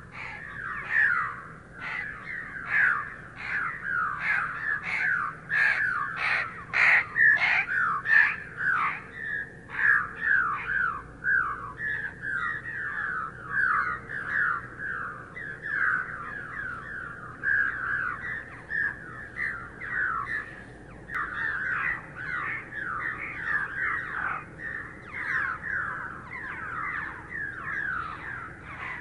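A flock of purple martins calling in flight: many short down-slurred chirps overlapping in a continuous chatter.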